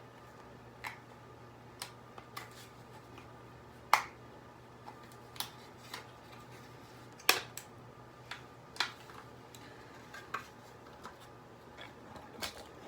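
Clicks and snaps of an alarm clock's small parts, diodes among them, being worked loose as it is taken apart. About ten sharp clicks come at uneven spacing, the loudest about four and seven seconds in, over a faint steady low hum.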